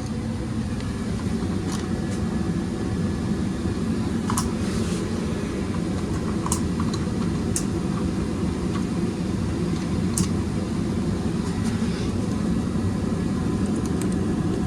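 Gas furnace running on a call for heat: a steady rushing hum of burners and blower air, with a few sharp ticks now and then.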